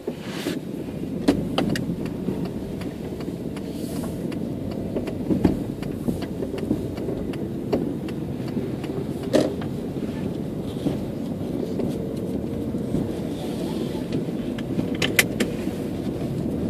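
Steady low rumble of a car on the move, heard from inside the cabin: engine and tyres on a rough, patched road, with a few short knocks scattered through it.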